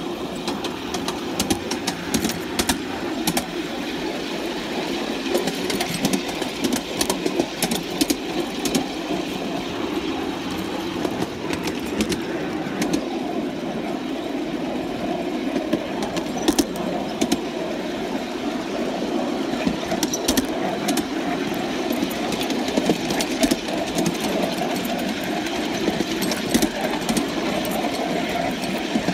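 Coal-fired 3½-inch gauge live-steam model locomotive of Penrhyn Quarry Railway 'Charles' running along the track: a steady, rapid mechanical running noise of its exhaust and small wheels on steel rail, with scattered sharp clicks.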